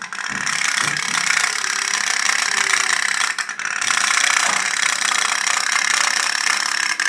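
Candle-powered pop-pop boat's steam engine running, a fast rattling putt-putt that keeps up steadily and dips briefly a little past three seconds in.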